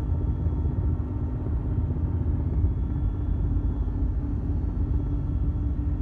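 Steady low drone of an aircraft in flight, heard from inside the cabin.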